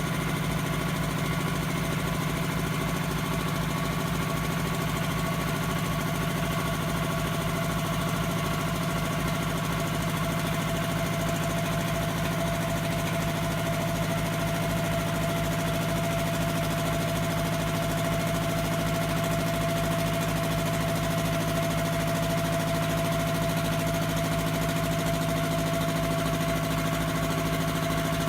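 Iwata air compressor running steadily: a motor-and-pump hum with a fast, even pulse underneath and a constant whine, coming on abruptly at full level.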